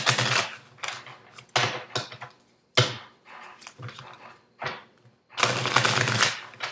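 Tarot cards being shuffled by hand: several short papery flutters of the deck with pauses between, the longest about five and a half seconds in.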